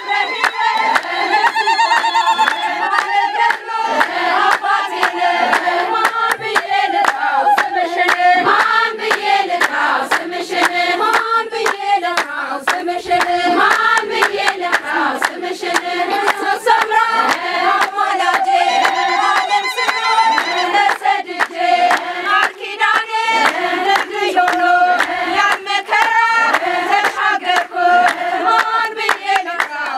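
A group of women singing an Ethiopian Orthodox hymn (mezmur) together, with steady hand-clapping that keeps the beat throughout.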